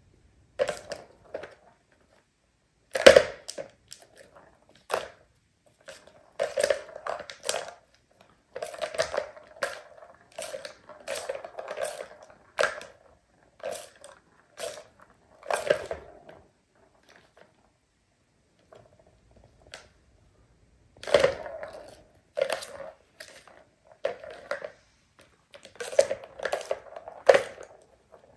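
Plastic balls rattling and rolling around the tracks of a three-tier cat track-tower toy as kittens bat at them, in irregular bursts. The rattling pauses for a few seconds past the middle, then resumes.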